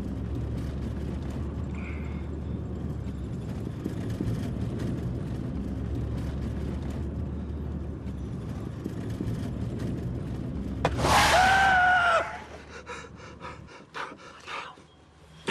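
Steady engine and road rumble inside a moving car, then about eleven seconds in a loud, high tyre screech lasting about a second as the car makes an emergency stop. Near the end the low engine rumble stops.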